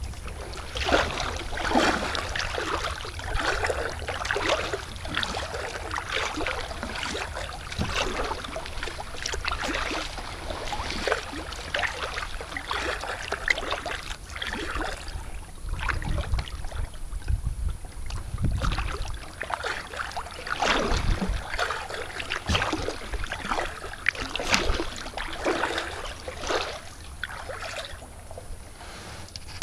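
Kayak paddle strokes splashing and dripping in calm water, about one stroke a second, thinning out in the middle as the kayak glides. A low rumble of wind on the microphone comes in about halfway through.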